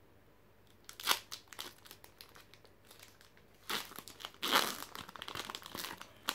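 Foil wrapper of a Pokémon TCG booster pack being torn open by hand: a sharp crinkle about a second in, scattered crackling, then louder tearing and crinkling of the foil from the middle on.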